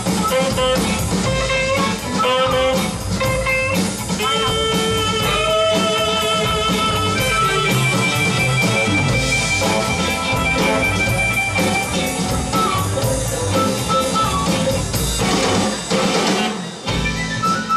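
Live funk band playing: electric guitars and drum kit with saxophone, under a wind-instrument lead line of long, held, wavering notes through the middle.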